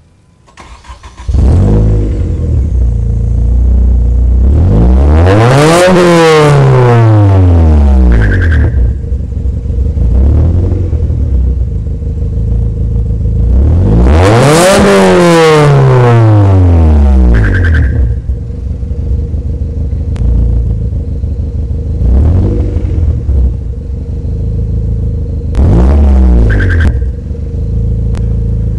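A Nissan 200SX's HKS aftermarket exhaust, heard loud at the tailpipe. The engine starts about a second in and idles, then is revved twice, long, each time climbing and falling back, then blipped twice more briefly, with a short whistle as each rev drops.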